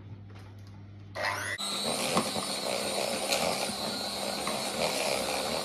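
Electric hand mixer switched on about a second in, its motor running steadily as the beaters whisk sponge cake batter in a plastic mixing bowl.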